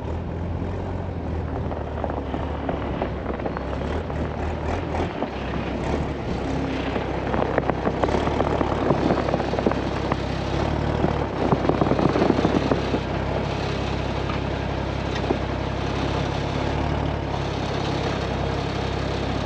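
1983 Mercedes Unimog U1700L's diesel engine running at low revs as the truck creeps forward and a wheel rolls into a hole dug in the sand to level the truck. The engine gets louder, with crunching, from about a third of the way in to about two-thirds of the way through.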